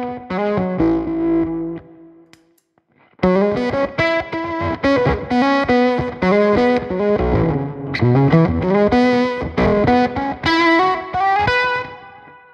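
Electric guitar played through an overdrive and an Octavia octave-fuzz pedal into a valve amp, with the compressor pedal switched off. A short run of single notes, a break of about a second, then a longer melodic phrase that dies away near the end.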